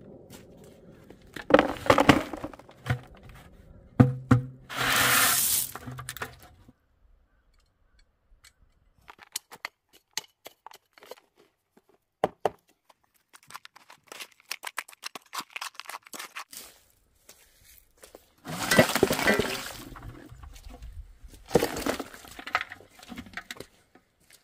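A small shovel scraping and digging through dry soil and powder in a large round mixing basin, with crunching scrapes and knocks against the basin. Twice dry material slides in with a rushing pour, about four seconds in and again past the middle.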